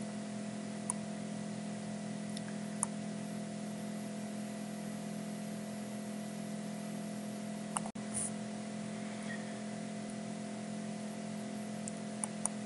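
Steady hum and hiss of microphone and room noise, with a few short, faint clicks scattered through: computer mouse clicks.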